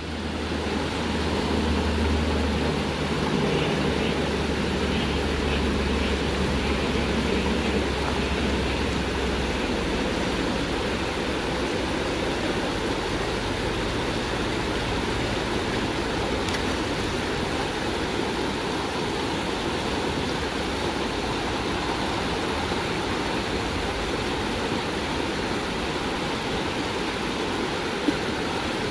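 Shallow rocky river running over small rapids: a steady rush of water. About a second before the end there is a brief splash in the water.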